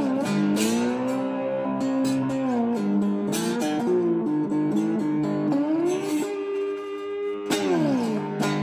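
Electric cigar box guitar with a single-coil pickup played with a slide. Its notes glide smoothly up and down, with a few sharp picked strikes along the way.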